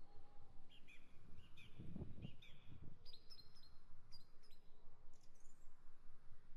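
Small birds giving short, repeated chirps, with a few soft low thuds about two seconds in.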